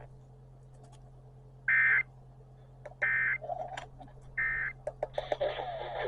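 Emergency Alert System end-of-message code after a NOAA Weather Radio warning: three identical short, high, buzzy data bursts about a second and a half apart, over a steady low hum with faint crackles. Radio speech begins near the end.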